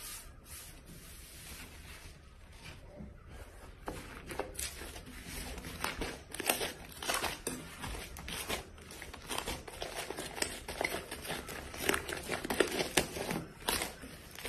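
Hands pressing and kneading thick slime in a glass bowl: a stream of small wet crackles, squelches and snaps. It is sparse and quieter at first and grows busier and louder from about four seconds in.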